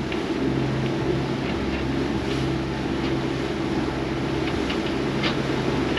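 Leopard 45 catamaran's inboard diesel engine running steadily under way, an even low drone.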